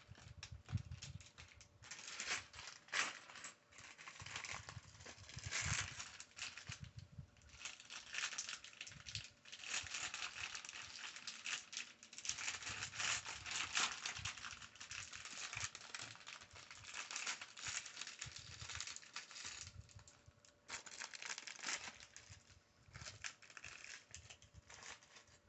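Crinkling and rustling of a clear plastic bag of Lego parts, with irregular small clicks of plastic bricks being handled.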